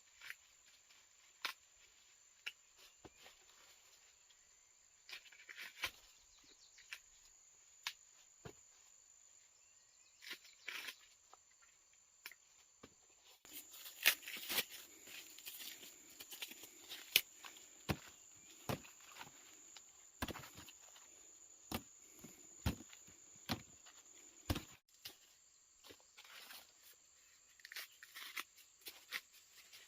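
Scattered rustles, snaps and crunches, busier from about halfway through, over a steady high-pitched insect drone.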